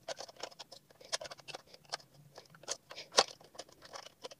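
Small irregular clicks and crinkles of a thin wire twist tie being untwisted and pulled against a hollow plastic toy shop, with one sharper click about three seconds in.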